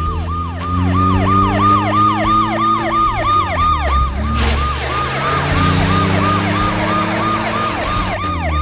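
Cartoon emergency-vehicle siren in a fast yelp, its pitch sweeping down about three times a second, over a low rumble. A hissing rush comes in briefly about halfway through.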